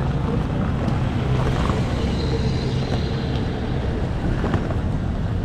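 Steady low rumble of road traffic and engines on a busy city street, with wind buffeting the microphone.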